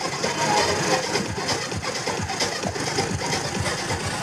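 Vehicle engine idling close by, a steady rapid low thudding.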